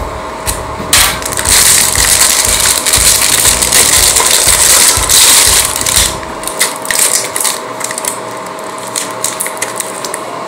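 Thin clear plastic packaging crinkling loudly as it is handled, most strongly from about one to six seconds in, then softer rustles and light clicks.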